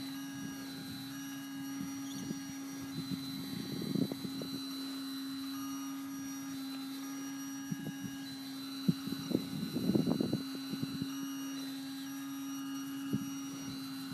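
Control-line stunt model aircraft motor running steadily at a constant high pitch. A rougher rush of noise rises and falls about every five to six seconds.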